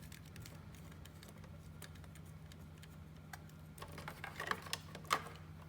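Small clicks and rattles of cable connectors and wires being handled and fitted to a control panel, with a burst of clicks about four seconds in, over a steady low hum.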